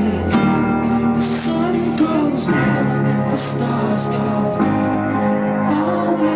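Live pop music: a male singer sings into a microphone over keyboard and band backing, with cymbal hits recurring through the beat.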